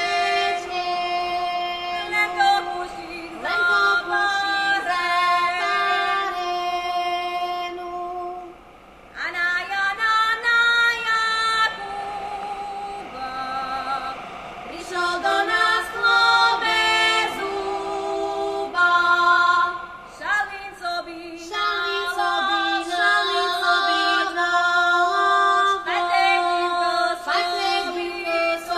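Slovak folk song sung by a group of voices, women's voices to the fore, with a short pause about eight seconds in.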